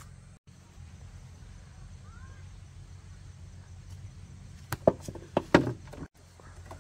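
A quick cluster of sharp knocks or thumps about five seconds in, over a low steady hum.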